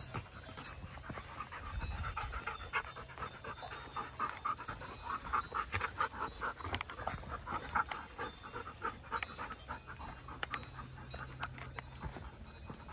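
Dutch shepherd dogs panting quickly and rhythmically, close by.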